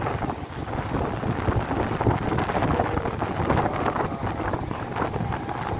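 Strong gusting wind buffeting the microphone over a heavy downpour of rain.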